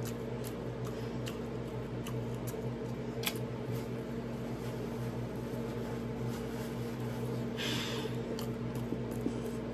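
A person chewing a mouthful of chicken wings, with scattered small wet mouth clicks and smacks, over a steady electrical hum. A short breath of air near the end.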